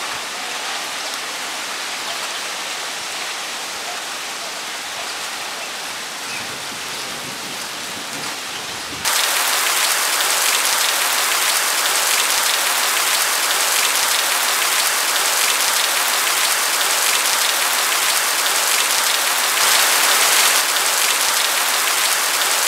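Steady rain, softer at first. About nine seconds in it jumps suddenly to a louder, hissier downpour that holds to the end.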